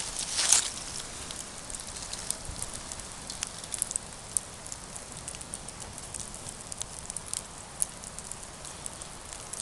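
Campfire burning and crackling: a steady hiss dotted with many small sharp pops and snaps, with a louder rustling flare about half a second in.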